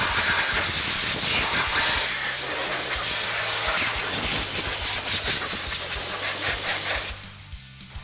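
Compressed-air blow gun hissing in a continuous blast, cutting off abruptly about seven seconds in.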